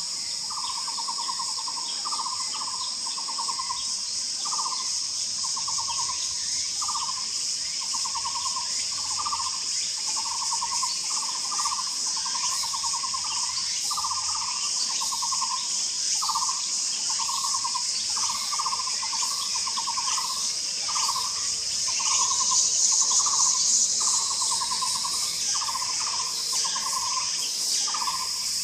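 Taiwan barbet calling: a long series of short low notes, each a quick rattle, repeated a little over once a second without a break. A steady high drone of insects runs underneath, swelling briefly about 22 seconds in.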